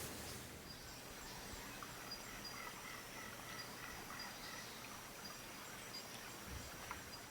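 Quiet outdoor ambience: faint insects chirping in short, evenly repeated high notes over a steady low hiss.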